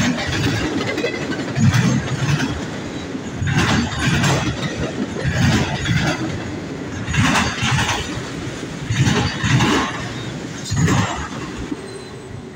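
CN freight train cars rolling past, wheels clattering in a rhythm of about one surge every two seconds over a continuous rumble that fades slightly near the end.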